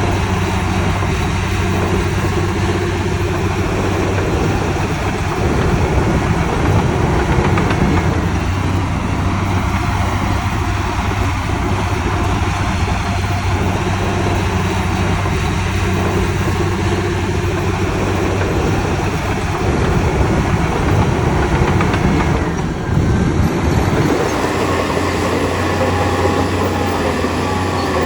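Diesel engine of heavy earthmoving machinery running steadily, swelling a little at times, with a brief dip and a change in its sound near the end.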